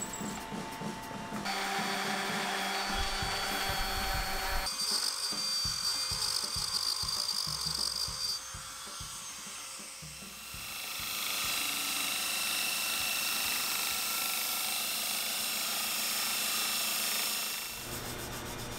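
Drill press boring into a brass sword pommel, over background music with a steady beat. The sound changes abruptly several times, and from about ten seconds in a steady hiss runs until near the end.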